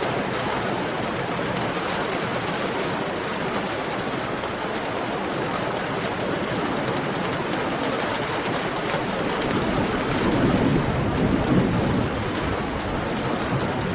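Heavy rain falling in a steady hiss of countless drops, with a low rumble swelling up for a couple of seconds about ten seconds in.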